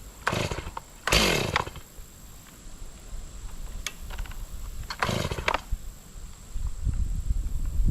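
An old Stihl chainsaw being pull-started: several short pulls on the recoil starter cord, the loudest about a second in, with the engine not yet running steadily. A low rumble sets in near the end.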